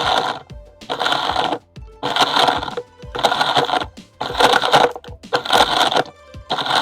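Philips Walita RI2242 1200 W blender run in short pulses, grinding brick pieces in its jar: about seven bursts of grinding, roughly one a second, over background music.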